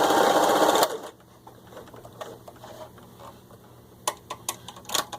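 Singer 353 Genie sewing machine running, stitching in reverse, then stopping under a second in. After a quiet stretch of small handling noises come several sharp mechanical clicks about four to five seconds in, as of a control on the machine being set.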